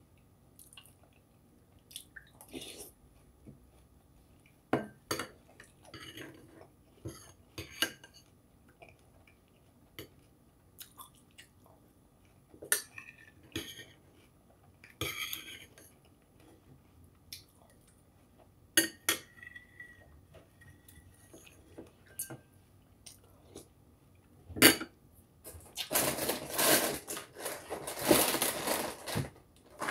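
Metal spoon clinking and scraping against a cereal bowl in short, scattered knocks, between bouts of crunchy chewing of dry cereal. Near the end a denser, louder crackling starts and runs on.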